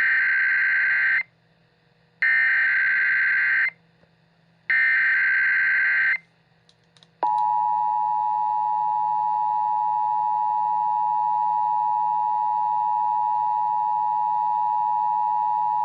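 Emergency Alert System broadcast tones: three bursts of SAME header data tones, each about a second and a half long with short gaps between, then the steady two-tone EAS attention signal, held for about eight and a half seconds.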